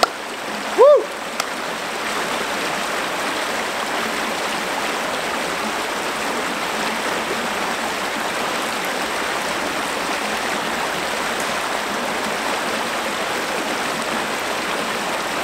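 Shallow woodland stream running fast over a rocky bed: a steady rushing of water. About a second in, a brief call that rises and falls in pitch sounds over it.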